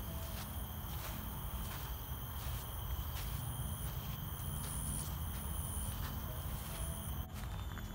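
Footsteps through grass, about two a second, over a steady high-pitched insect drone with short repeated chirps and a low rumble underneath. The sound changes abruptly near the end.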